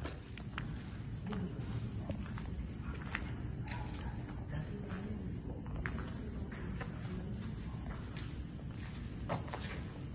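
Crickets trilling steadily at a high pitch, a second, higher trill joining about a second in, with scattered faint footsteps and clicks.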